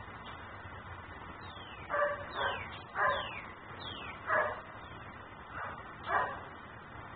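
German Shepherd barking: six barks spaced irregularly from about two seconds in, one of them fainter.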